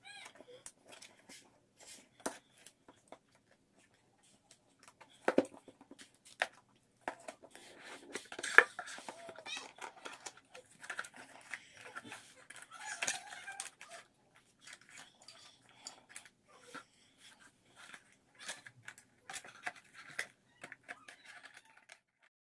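Hands handling a cardboard smartwatch box and its packaging: scattered clicks, taps and rustling as the lid is lifted off and the inner tray is handled, with one sharp knock about eight and a half seconds in.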